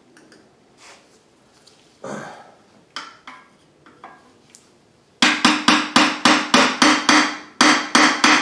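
A hammer striking metal in a quick run of about a dozen ringing blows, roughly four a second, starting about five seconds in after a few light knocks. The blows work a Subaru engine apart from its transmission where the joint is stuck.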